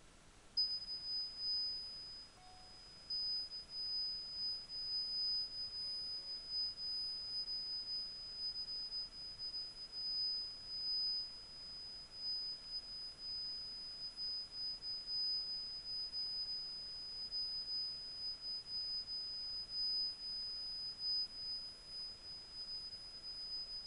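Steady high-pitched electronic sine test tone, starting about half a second in and holding one pitch, its loudness wavering up and down.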